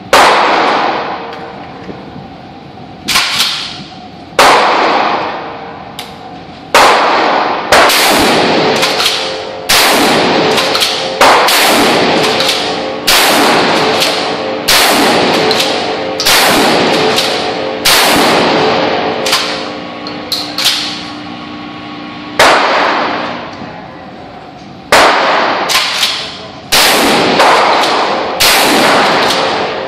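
Gunshots fired one at a time, about twenty of them at an uneven pace of roughly one every second or two, each sharp crack followed by a long ringing decay.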